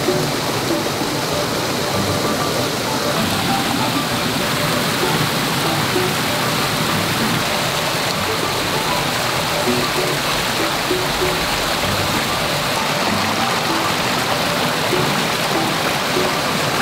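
Mountain stream rushing over rocks in small cascades, a steady rush of water, with soft background music.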